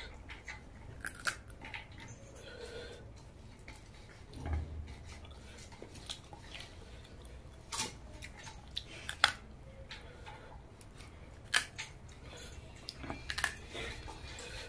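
Close-up chewing and mouth sounds of a person eating spicy crab curry with rice by hand, with scattered sharp clicks and cracks as bits of crab shell are bitten and picked apart.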